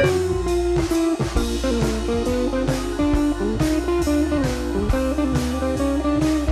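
Background music: a plucked guitar melody over bass and a steady drum beat.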